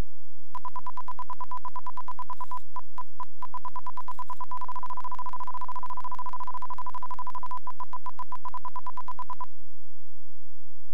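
Light aircraft's stall-warning tone beeping rapidly during the landing. The beeps speed up into a steady tone for about three seconds in the middle, then break back into beeps and stop: the wing is near the stall as the plane is held off and set down on the runway.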